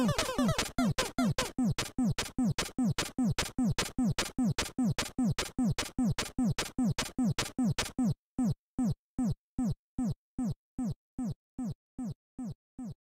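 Background electronic music with a steady kick-drum beat. About eight seconds in the other layers drop out, leaving only the bare kick, which fades out near the end.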